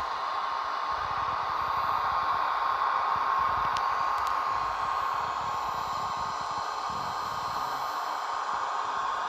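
ESU model of an SBB Ae 6/6 electric locomotive running, its sound decoder playing a steady fan-like hiss of blowers with a steady high whine over it.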